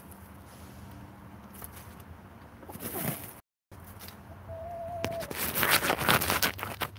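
A hen makes low, soft clucking and murmuring sounds. About halfway through there is a short steady squeak-like note. After that, the loudest part is a dense crackling rustle of wood-shaving bedding being stirred up.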